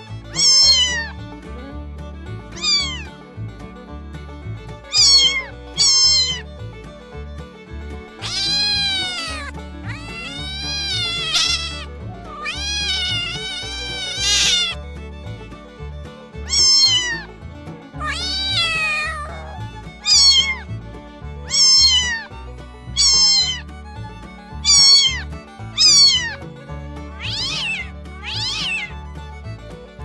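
Domestic cat meowing over and over: many short, high-pitched mews, each falling in pitch, with a few longer drawn-out meows in the middle. Soft background music plays underneath.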